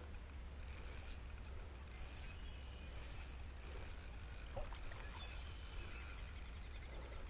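Faint outdoor ambience: a steady high-pitched chirring of insects over a low hum, with a soft click about four and a half seconds in.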